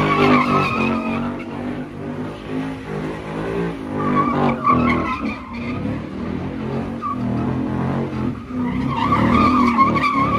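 A car doing donuts: its engine revs hard while the rear tyres squeal and skid on the pavement. The squeal swells three times, at the start, about four seconds in and near the end.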